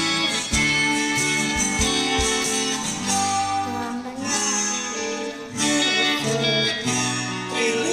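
Instrumental break of a karaoke backing track: guitar-led music with a steady beat and no voice.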